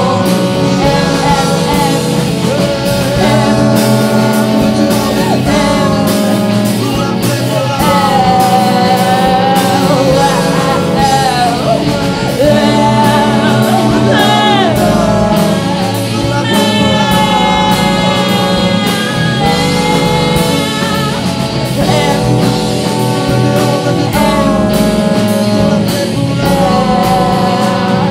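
A live band playing a rock-soul song: several voices singing over electric bass, with saxophone and trombone.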